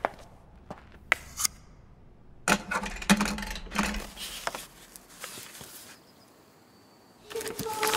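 A few small clicks, then paper rustling as the pages of a large book are turned, in several bursts. Music with held notes comes in near the end.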